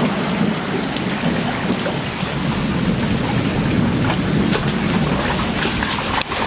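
Heavy rain and muddy floodwater running across a flooded yard and concrete driveway: a steady rushing noise with no breaks.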